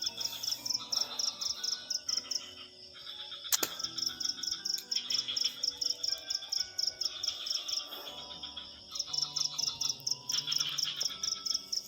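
A night chorus of crickets and other insects, several chirping in fast, high-pitched pulses that overlap and come in runs. One sharp click sounds about three and a half seconds in.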